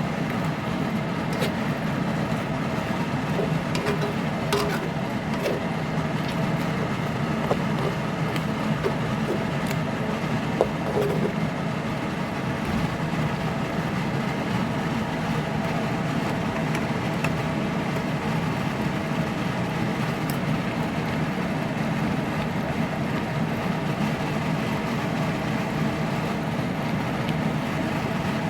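Steady hum of a kitchen range hood exhaust fan, with a few light clicks and taps in roughly the first ten seconds.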